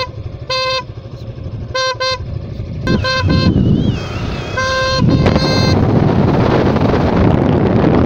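Suzuki Gixxer's custom single electric horn sounded while riding: a run of short toots on one steady pitch, a quick cluster of toots about three seconds in, and one longer blast about five seconds in. Motorcycle engine and road noise rise underneath as the bike gathers speed.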